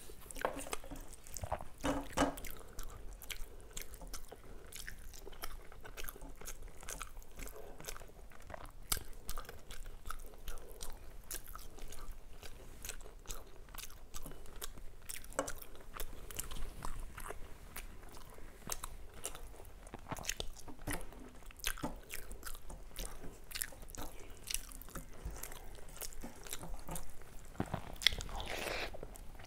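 A person chewing and biting mouthfuls of rice with fish curry: a steady run of many short, wet mouth clicks, with a brief louder mouth sound near the end.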